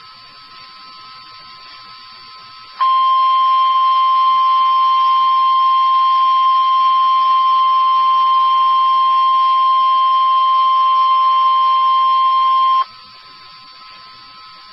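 Emergency Alert System attention tone for a severe thunderstorm warning: one loud, steady, single-pitched tone that starts about three seconds in, holds for about ten seconds and cuts off abruptly, with a low hiss before and after it.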